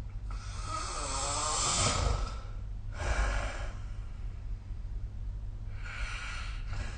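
A sleeping person snoring: a long, fluttering snore lasting about two seconds, a shorter breath about a second later, and another breath near the end, over a steady low hum.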